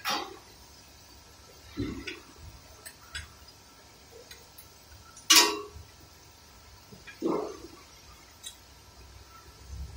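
Irregular metal clinks and knocks from hand work on the front differential and transmission jack under a lifted vehicle. There are several separate strikes, the loudest about five seconds in.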